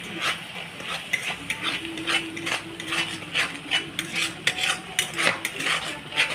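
A metal spoon stirring and scraping in a cooking pot, striking the pan in quick, uneven strokes about three times a second.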